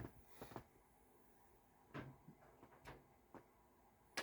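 Near silence with a few faint, scattered clicks and taps: a USB cable's plug being handled and tried in a device's charging port.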